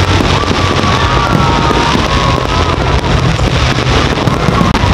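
Fireworks bursting and crackling in a dense, continuous barrage, with the show's music playing along and a high wavering whistle over it.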